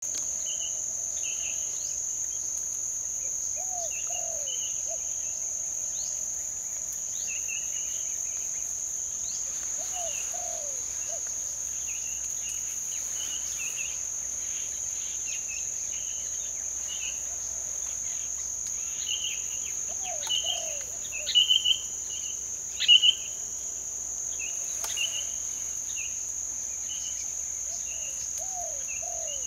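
A steady, high-pitched insect drone, typical of crickets, with small birds chirping over it; a few sharp chirps a little past the two-thirds mark are the loudest sounds. A lower, short call repeats every several seconds.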